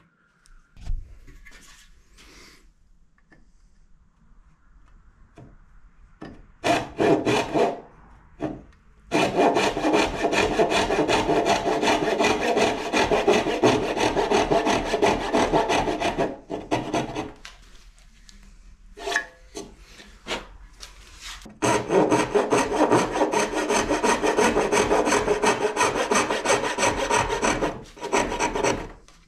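Brass-backed hand back saw cutting down into the end of a hardwood tenon to remove the waste. After a quiet start come a few short starting strokes, then steady back-and-forth sawing in two long runs separated by a pause of a few seconds.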